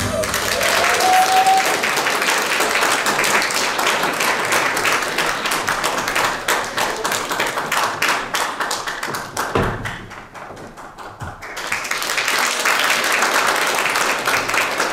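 Audience applauding: dense hand clapping that drops away for a moment about ten seconds in, then picks up again.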